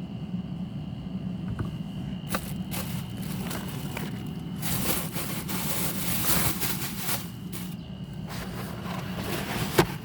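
Scrubbing and scraping at greasy grime on a kitchen ventilation fan, coming in noisy bursts with scattered clicks through the middle, over a steady low machine hum. A single sharp knock near the end.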